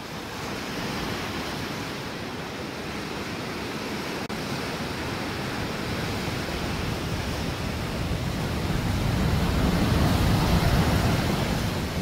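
Sea surf breaking and washing over a rocky, pebbly shore: a steady rush of waves that swells louder around nine to eleven seconds in as a bigger wave comes in, then eases.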